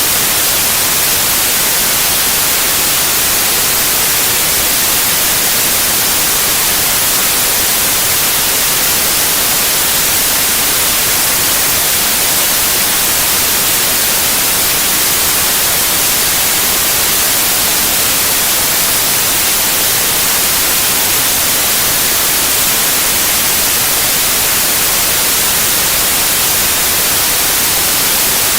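Steady electronically generated white noise, an even hiss with no change or events.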